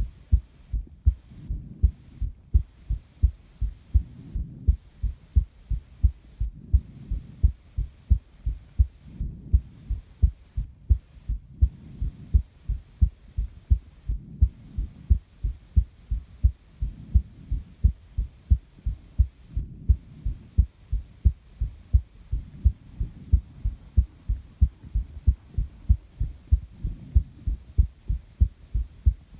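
A person's heartbeat recorded close against the chest: a steady, even train of low thumps. Soft breathing swells and fades behind it about every two and a half seconds.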